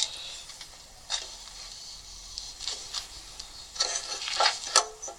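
Handling noise: scattered light scrapes, rubs and clicks of hands working over the small stationary engine's parts, busiest near the end.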